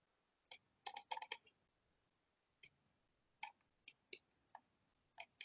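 Computer mouse clicking: a quick run of clicks about a second in, then single clicks every half second or so, over a near-silent room.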